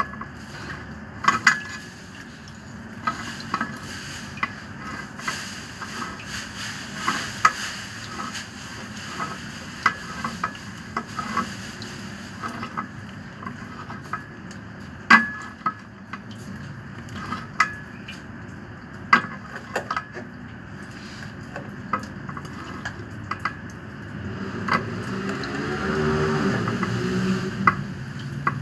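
Irregular metal clinks and scrapes of a wrench working the threaded pipe union on a small peripheral water pump's outlet during installation, with a louder, busier stretch of scraping near the end.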